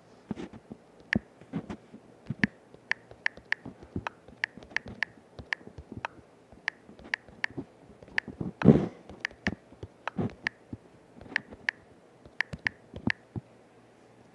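Short clicks of typing on a smartphone's on-screen keyboard, about two a second at an uneven pace, with one louder, duller knock near the middle.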